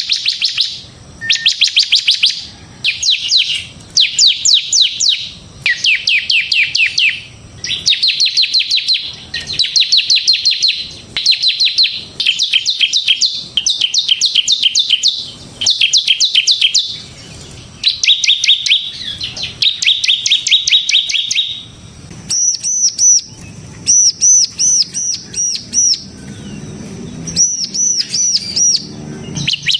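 Bar-winged prinia (ciblek semi) singing in rapid trills, phrases of about a second repeated with short gaps. About two-thirds of the way through, the song changes to a string of higher, arched notes.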